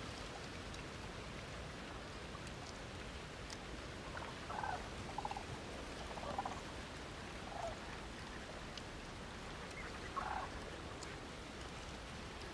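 Five short animal calls, spread between about a third and most of the way through, over a steady background hiss.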